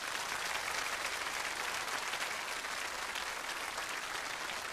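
Studio audience applauding steadily, a dense even clapping.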